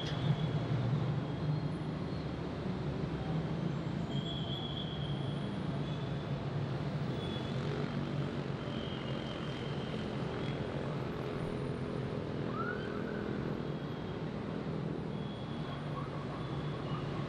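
Steady city street traffic: many vehicle engines running together in a continuous low rumble. Short high tones recur every second or two, and a brief rising tone sounds about twelve seconds in.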